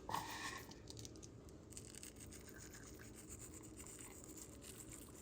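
A short clatter right at the start, then faint scratchy rubbing and handling: hands working marinade into small quail.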